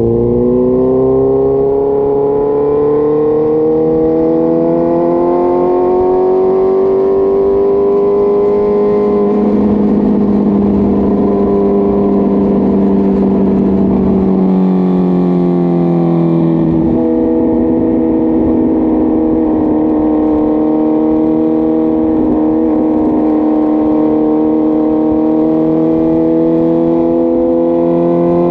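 Suzuki GSX-R1000 K5's inline-four engine held at raised revs, its pitch climbing slowly over the first several seconds, holding, sagging, then stepping up suddenly partway through and holding steady with a slight rise near the end.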